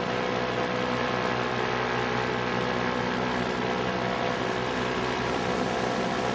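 Paramotor's small two-stroke engine and propeller running steadily at cruising power in flight, a constant even drone.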